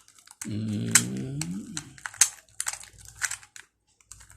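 Rubik's cube layers being turned by hand, a run of quick plastic clicks and clacks. A drawn-out, wordless voice sound with a gliding pitch comes in over the clicks for about a second and a half near the start.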